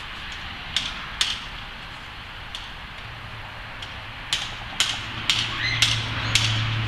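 Sharp clicks over a steady outdoor hiss. The clicks come singly, about eight of them and more often in the second half, and a low hum comes in about halfway.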